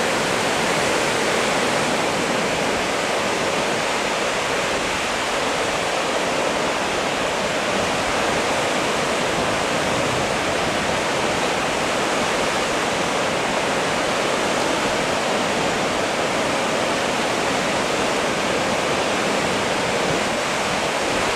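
The Sutlej River rushing over boulders in white-water rapids: a steady, loud, unbroken wash of water noise.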